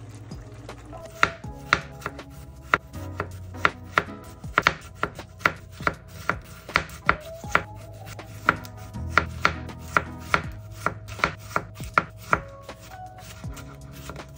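Chef's knife slicing a cucumber on a plastic cutting board: a sharp tap each time the blade meets the board, about two or three a second, starting about a second in.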